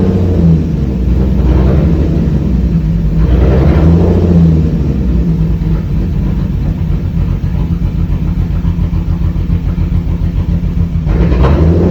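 Car engine running, with the revs rising and falling in several short swells over a steady rumble.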